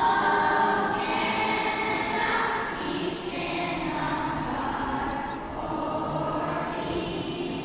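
A children's school choir singing together, holding notes that change pitch every second or so.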